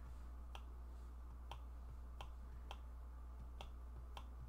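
Faint clicks from a computer mouse, about two a second, over a low steady hum.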